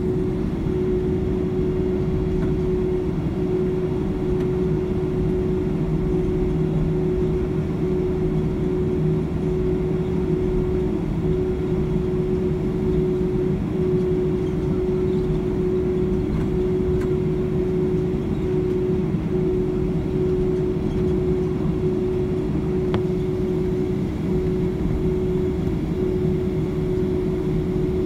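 Jet engines at idle heard from inside the cabin of a Boeing 767-300ER as it taxis: a steady rumble with a constant hum running through it.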